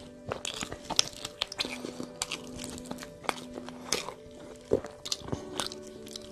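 Close-miked eating sounds: chewing fried chicken meat pulled off the bone by hand, with many short sharp clicks. Soft background music with long held notes plays underneath.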